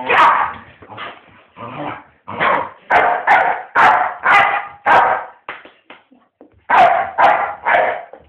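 Staffordshire bull terrier barking in play, as it tries to bite its owner: a series of short barks about two a second, then a pause of about a second before a final run of three.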